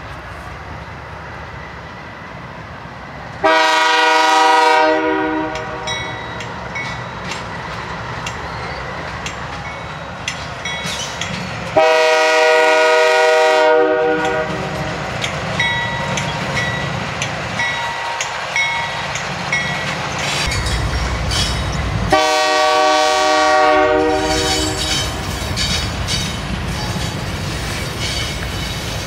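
Diesel freight locomotive's air horn sounding three long blasts, about eight and ten seconds apart, over the steady rumble and clatter of a freight train rolling past on the rails.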